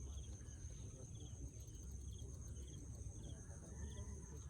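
Insects, likely crickets, chirping: short chirps repeating about twice a second over a steady high-pitched buzz, with a low rumble underneath.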